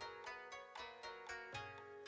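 Quiet background music of plucked koto notes in a Japanese style.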